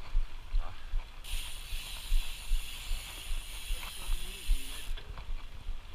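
Mountain bike on a trail: low buffeting and rumble on the microphone, with a bicycle freewheel hub buzzing for about four seconds in the middle while the rider coasts.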